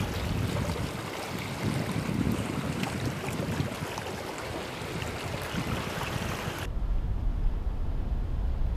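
Outdoor harbour ambience: an even hiss with wind rumbling on the microphone. About seven seconds in the sound changes abruptly, leaving mostly a low wind rumble on the microphone.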